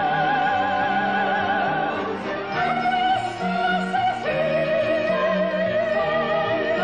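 Operatic soprano singing long held notes with a wide vibrato, stepping down in pitch twice, over an orchestra.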